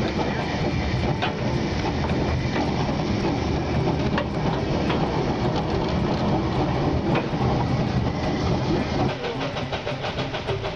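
Small steam locomotive running, heard from its cab, with wheels clicking over the rail joints. About nine seconds in the sound shifts and grows a little quieter, as the locomotive is heard from beside the track.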